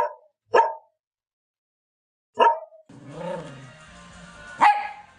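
Pet dog barking in single sharp barks, three within the first two and a half seconds and another near the end, with music starting about three seconds in.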